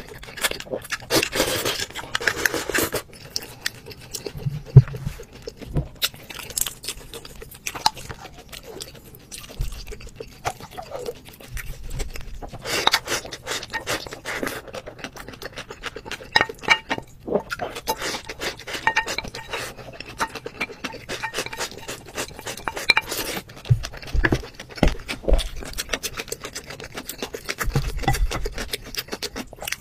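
Close-miked eating sounds: wet chewing and mouth noises over rice, with chopsticks and spoons clinking and scraping against ceramic and glass bowls in quick, irregular clicks.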